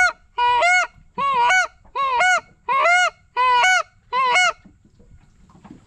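Goose honking: a run of loud, evenly spaced single honks, about one every three-quarters of a second, stopping about four and a half seconds in.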